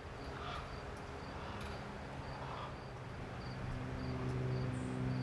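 A cricket chirping in short high chirps, about two a second. A low steady hum comes up past the middle.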